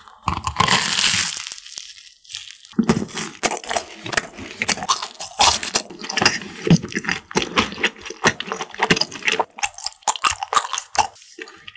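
A crunchy bite into an Oreo croffle (croissant-dough waffle), then close-miked crisp chewing, a run of crackling crunches.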